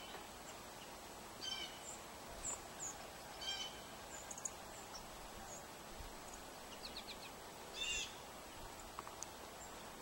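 House sparrows chirping at a seed feeder: a few short, separate chirps spaced a couple of seconds apart, the last and loudest near the end, with thin high chips between them over a steady outdoor hiss.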